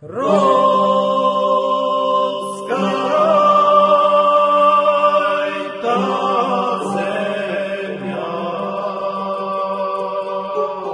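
Background music: chanted singing in long held notes over a steady low drone, the sung phrase changing about three seconds in and again about six seconds in.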